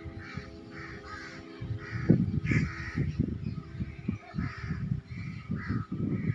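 Crows cawing, a rapid run of harsh calls about two or three a second, over low irregular rumbling thumps that grow stronger about two seconds in.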